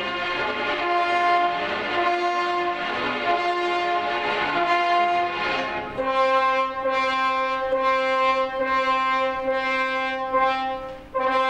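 Opera orchestra playing long held notes, with brass prominent. The notes shift through the first half; from about halfway a steady sustained chord holds with a regular pulse above it, breaking off briefly just before the end.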